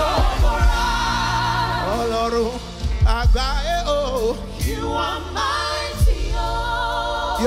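Gospel worship song: singing over instrumental backing.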